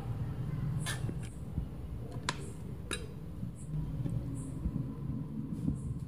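Metal spoon clinking and scraping against a stainless steel plate while serving rice, with three sharp clinks in the first half, over a steady low rumble.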